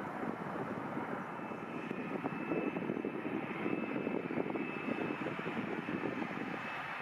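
Jet engines of a Boeing 757-200 freighter, a steady rumbling roar, with a thin high whine joining about two seconds in.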